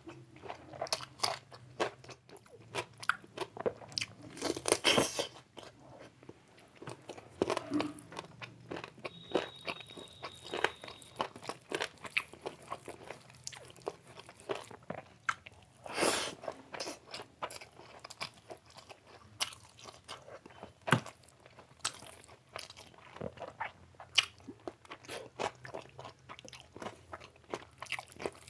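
Close-up chewing and biting of chicken biryani and chicken curry: irregular wet mouth clicks and crunches, with louder bites about five seconds in and again about sixteen seconds in.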